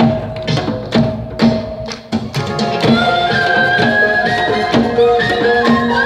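Amplified Korean traditional fusion music: a drum beat carries the first two seconds, then a bowed haegeum fiddle and bamboo flute take up a sustained melody over the rhythm.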